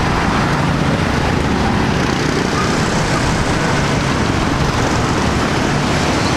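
Steady street traffic noise, an even rushing hiss of vehicles with no single engine standing out.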